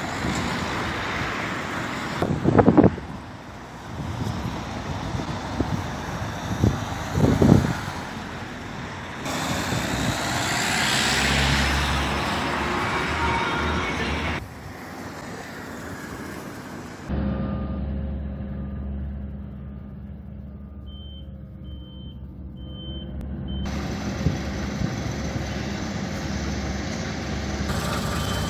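Road traffic, cars and a bus driving past with a few loud close passes, then heavy roadworks machinery running with a steady low engine hum and a vehicle's short repeating reversing beeps. Near the end a tandem road roller's engine is running.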